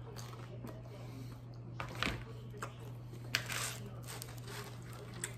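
Quiet eating and handling sounds: a few short mouth smacks and rustles as a man licks his fingers and picks at a pizza in a cardboard box, over a steady low hum.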